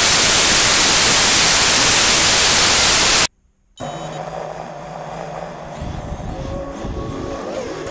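Loud TV-static white-noise hiss that cuts off suddenly about three seconds in; after a half-second gap, music comes in.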